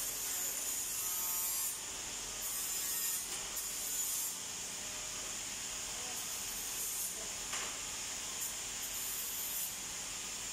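Steady workshop background noise, with a high hiss that comes and goes in stretches of about a second.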